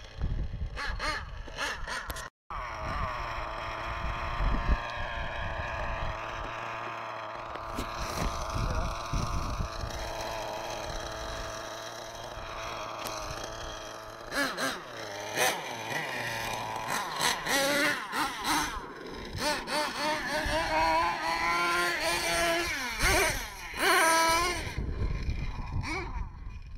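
Small nitro engines of RC monster trucks running and revving, a high, buzzing whine whose pitch climbs and drops again and again as the throttle is worked. The revving comes quicker in the second half. There is a sudden break about two seconds in.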